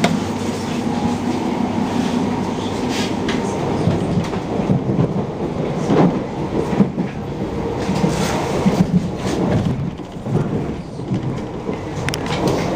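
Passenger train running, heard from inside the carriage: a steady rumble of wheels on rails with irregular clicks and clatters as the wheels cross rail joints and points, several in quick succession near the end.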